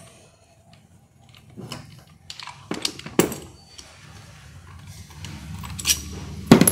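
Metal clicks and clinks from a hand crimping tool for air-conditioning hose ferrules being handled, its crimp dies lifted out and its locking pin on a wire lanyard pulled. Several separate sharp knocks are spread through, the loudest near the end.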